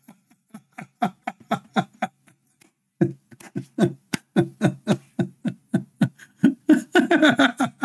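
A man laughing: a long run of short, quick chuckles, several a second, with a brief pause about three seconds in.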